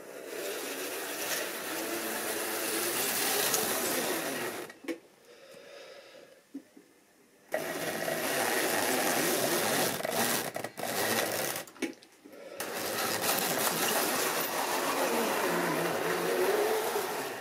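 Tri-ang model train running on the layout: the locomotive's electric motor whirring and the wheels rattling along the track, loud three times as it passes close, with a few sharp clicks over rail joints or points about ten to twelve seconds in.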